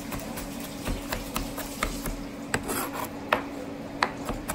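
Chef's knife mincing garlic on a cutting board: irregular sharp knocks of the blade striking the board, about two a second, over a steady low hum.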